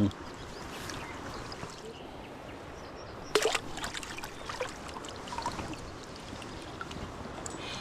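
River water trickling and running, with one sudden sharp sound a little over three seconds in.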